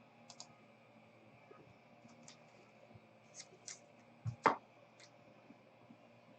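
Faint scattered clicks and taps of hands handling small objects, with one sharper click about four and a half seconds in.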